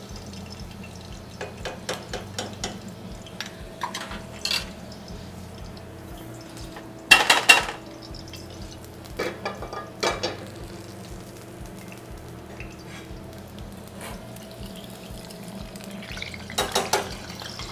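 Metal tongs and ladles clinking and clattering against stainless-steel pots and pans, in scattered knocks with the loudest clatter about seven seconds in and another burst near the end, over a steady low hum.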